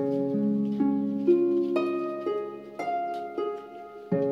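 Background instrumental music: a melody of plucked string notes, a new note roughly every half second, each ringing on and fading.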